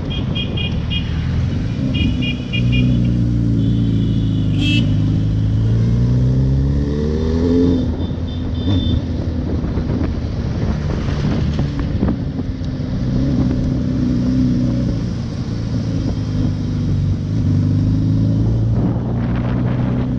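Suzuki Hayabusa's inline-four engine with its stock exhaust, riding, the pitch rising as it accelerates over the first few seconds, then easing off and running steadily with another rise midway. Short repeated electronic beeps sound about two seconds in and again about eight seconds in.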